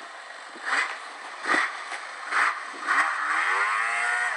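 Snowmobile engine surging in short bursts, then rising steadily in pitch as it accelerates near the end.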